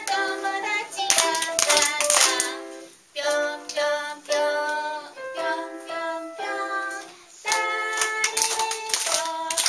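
A woman singing a children's action song, her notes held and stepping up and down, with hand claps in places, mostly in the first couple of seconds and again near the end.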